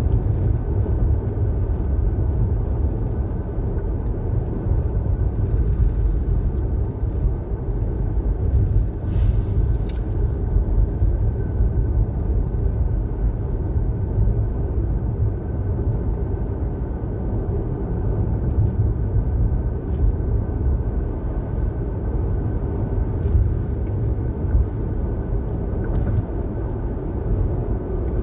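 Steady low rumble of road and engine noise from a car being driven, with brief hissing swells about six and nine seconds in.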